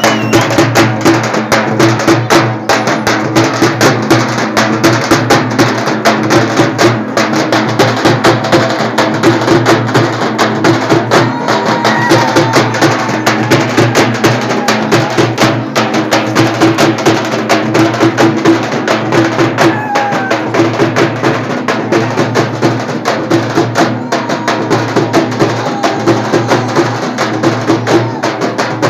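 Several large frame drums beaten rapidly and loudly in a dense, steady rhythm.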